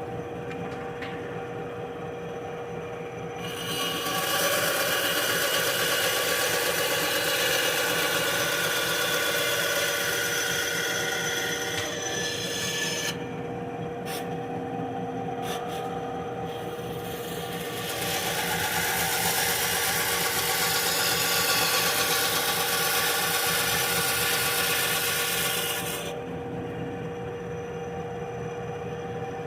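Benchtop bandsaw running steadily while its blade cuts through a slab of wood in two long passes, about four seconds in and again past halfway, following a curved line to cut out an oval. Between the cuts the saw runs free with a steady hum, and a few sharp clicks sound in the pause.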